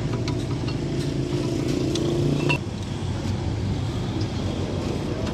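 A motor vehicle's engine running with a steady low hum that eases off about halfway through, with a few faint metallic clicks.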